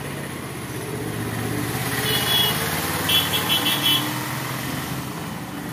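A motor vehicle passing close by on the road; its engine noise swells towards the middle and then eases off. Short rapid high-pitched beeps sound twice around the middle.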